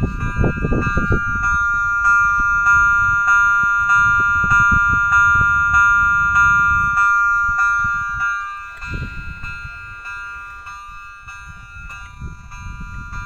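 Level-crossing warning bell ringing in repeated, evenly spaced strokes, roughly every two-thirds of a second. The sign that the crossing is closed for an approaching train. It grows fainter about eight seconds in but keeps ringing.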